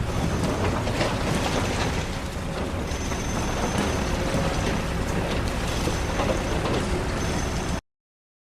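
Heavy construction machine at work: a steady diesel engine rumble with scattered metallic clanks and a faint high squeal, cutting off abruptly near the end.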